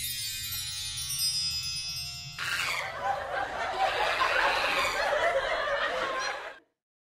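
Chimes ringing out and fading. About two and a half seconds in they give way to roughly four seconds of laughter, which cuts off abruptly into silence.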